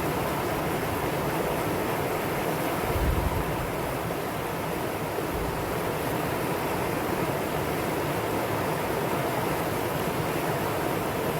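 Valley stream water rushing steadily over rocks, a constant even rush. A brief low rumble about three seconds in.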